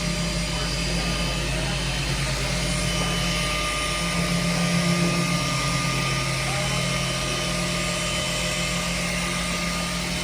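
Electric dual-action machine sander with a sanding disc running steadily, wet-sanding automotive paint, with a constant motor hum that swells slightly about halfway through.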